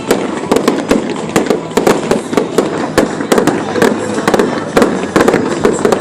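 Fireworks going off in rapid succession: a dense string of sharp pops and bangs, several a second, over a continuous lower rumble.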